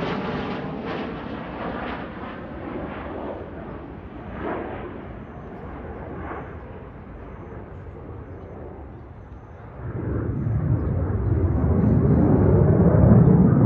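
F-16 fighter jet's engine roaring past and fading as it flies away, its pitch falling. About ten seconds in a deep rumble swells up loudly again as the jet's engine noise comes back.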